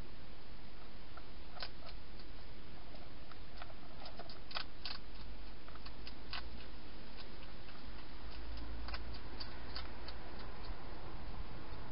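Scattered small clicks and crackles from a wild hedgehog foraging, over a steady hiss from the camera's microphone.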